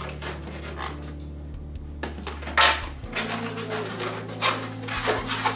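Latex balloons squeaking and rubbing as they are twisted and handled by hand: a string of sharp squeaks and rubs, the loudest about two and a half seconds in.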